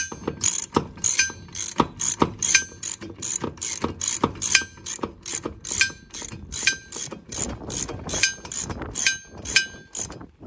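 Hand socket ratchet clicking in a steady run, about two or three clicks a second, as it is swung back and forth to tighten a bolt on the spare tire carrier's door-hinge mount. The bolt is being run up snug before its final torque.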